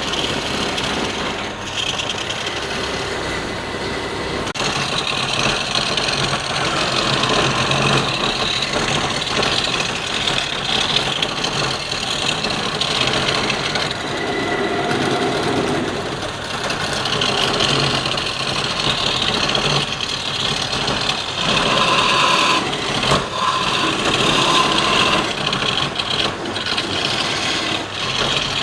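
Wood lathe running while a turning tool cuts the spinning wood: a steady scraping hiss over the motor's hum, growing stronger and easing off as the cut changes.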